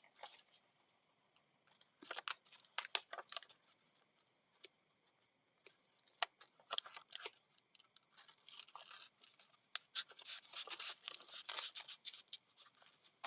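Faint paper handling: paper rustling and scratching in short bouts with small clicks, as paper for a hand-bound book is trimmed and fitted. The busiest rustling comes in the second half.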